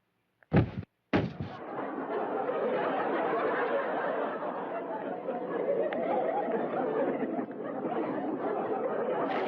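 Two loud thuds about half a second apart, then a studio audience laughing steadily.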